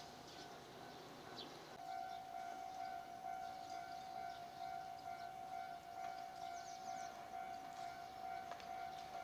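Faint railway level-crossing warning bell, a steady repeating electronic tone that starts about two seconds in, signalling an approaching train.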